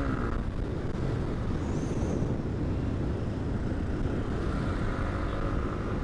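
Yamaha motorcycle cruising at about 55–60 km/h, its engine and wind rushing over the rider's camera microphone making a steady low rumble.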